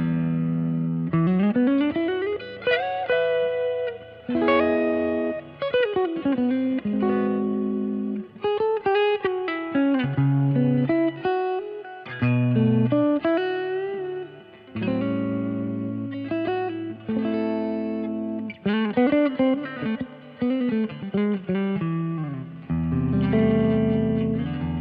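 Baum Backwing electric guitar played through an amp: a tone demo of melodic single-note lines with slides up and down the neck, mixed with held chords and ringing low notes.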